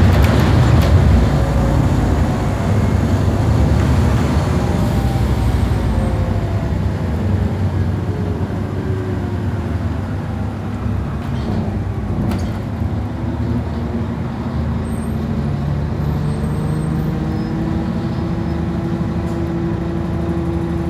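A bus's engine and drivetrain heard from inside the saloon as it drives, with a steady drone of engine and road. The pitch falls over the first several seconds as the bus slows, then rises again in the last few seconds as it picks up speed, and a couple of short rattles come about halfway through.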